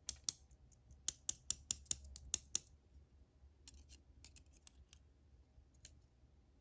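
Small metal clicks from handling the pins and springs of a disassembled American Series 1100 padlock: about nine sharp clicks in the first two and a half seconds, then fainter scattered ticks.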